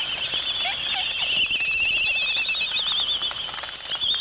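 Laysan albatross colony calling: a steady chorus of high, wavering warbles. A dancing pair adds quick clicks, thickest in the second half, typical of courtship bill-clapping.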